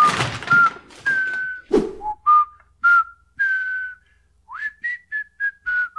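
A person whistling a light tune through the lips, with breath audible on each note. Longer held and gliding notes come first, then from about four and a half seconds a quicker run of short notes, about four a second. A splash of liquid dies away at the very start, and there is a dull thump about two seconds in.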